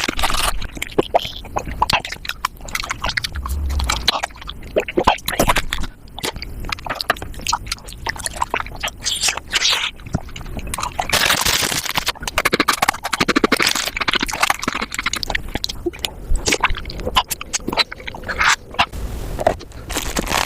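Mukbang eating sounds played at five times normal speed: a fast, dense run of crunching, chewing and scraping, full of quick clicks.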